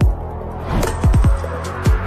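Background music with a beat of deep bass hits that drop in pitch, several in quick succession about a second in and again near the end.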